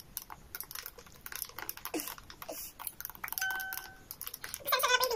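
Chewing and small irregular mouth clicks from people eating mango. About three and a half seconds in, a short steady beep sounds, and a voice starts near the end.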